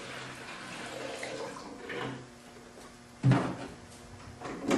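Gasoline pouring from a red plastic gas can into a plastic measuring pitcher, a steady stream that trails off about two seconds in. Then two knocks about a second and a half apart as the plastic can is set down on the bench and handled.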